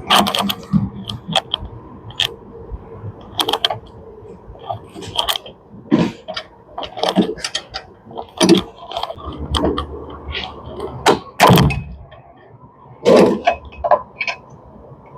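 Irregular metallic clicks and knocks of a spanner working the clutch adjusting nut on a top-load washing machine's drive, with the loudest knock about eleven seconds in.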